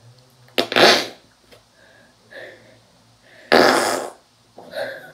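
Two loud, short fart-like bursts about three seconds apart.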